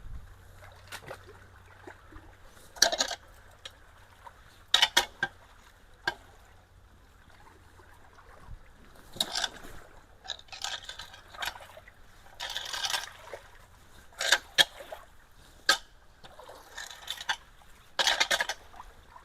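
Ditch water splashing and sloshing in a dozen or so irregular short bursts as debris is worked loose at a culvert, over a low steady wash of flowing water.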